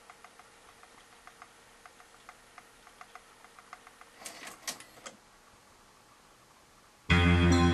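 Faint light ticking about three times a second, then a quick cluster of mechanical clicks from the cassette deck's transport about four seconds in. Near the end, loud music starts playing back.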